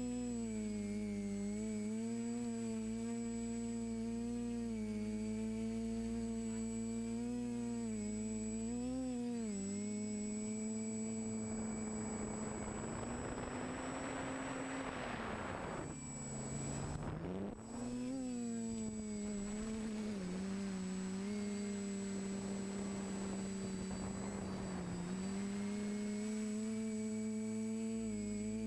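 The motors and propellers of a TBS Discovery Pro quadcopter hum steadily, the pitch wavering as the throttle shifts, over a thin high whine. A little past halfway a rush of air noise builds, then the pitch drops sharply and the sound dips for a moment before climbing back to a steady hum.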